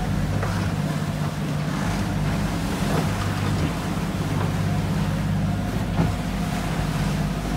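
A catamaran's engine running with a steady low drone, heard from inside the enclosed cockpit over a wash of sea and wind noise. A sharp knock comes about six seconds in.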